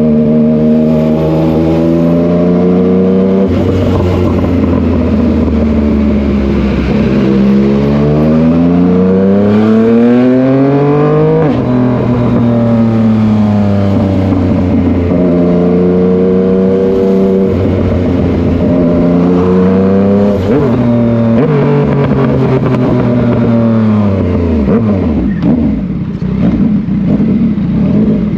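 Yamaha MT-09 three-cylinder motorcycle engine under way. The revs climb and drop sharply at each gear change, several times over. Near the end it winds down off the throttle with crackling and popping on the overrun.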